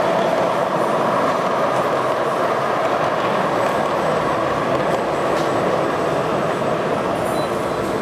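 Gauge 1 model passenger train rolling over metal track, a steady rumble of wheels on rails with a few faint clicks.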